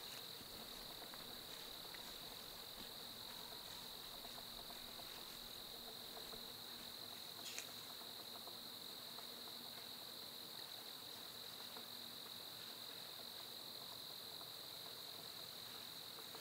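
A chorus of crickets makes a steady, unbroken high-pitched trill in the woods. There is one faint click about seven and a half seconds in.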